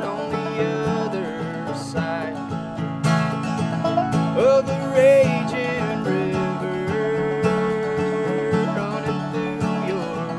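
Acoustic bluegrass string band playing an instrumental passage: banjo, acoustic guitar and mandolin, with a snare drum keeping a steady beat.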